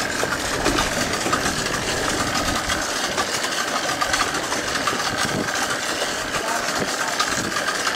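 Boat engine running steadily, with a constant rush of wind and water noise.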